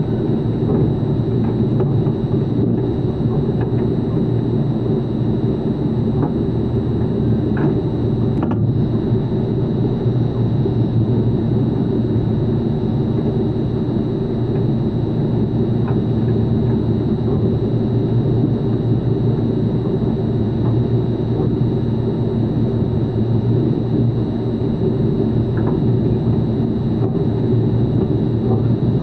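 A steady, loud machine drone with a low hum, unchanging throughout, with a few faint ticks over it.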